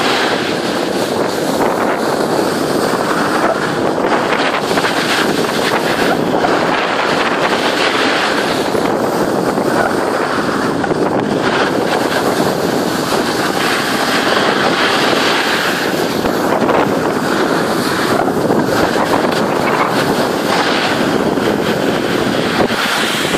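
Steady rushing noise of a snowboard running down a groomed slope: the board scraping over the snow, with wind buffeting the microphone.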